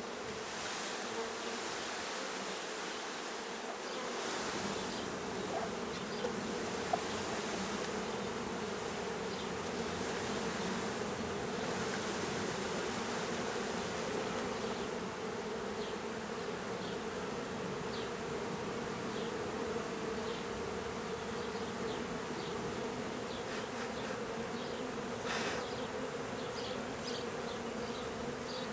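A mass of honey bees just shaken out of a package into an open hive, buzzing as one dense, steady hum. A short knock sounds near the end.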